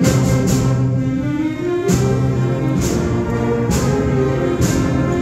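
A school concert band playing: brass and woodwinds hold full chords, punctuated by sharp accented hits about once a second.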